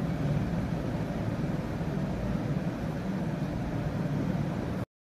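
Steady low background hum, cutting to dead silence for about half a second near the end.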